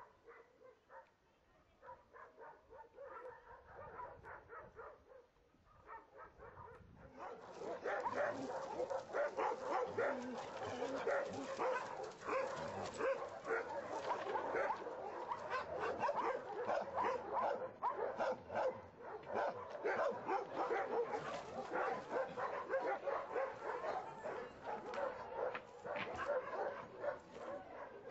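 Many dogs barking together in a shelter's kennel yard. The barking is faint and scattered at first, then loud and continuous from about seven seconds in.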